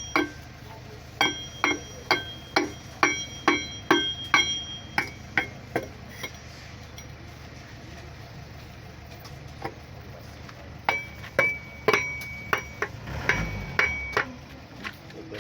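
Hammer striking metal in two runs of steady blows, roughly two a second, each with a short metallic ring. The runs are separated by a pause of several seconds.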